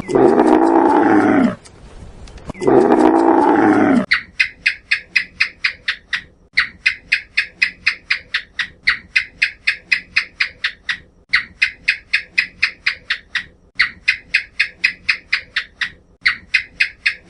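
Two long, deep animal calls that rise and fall in pitch, then a rapid chattering of sharp, high chirps, about five or six a second, in runs of about two seconds with brief breaks.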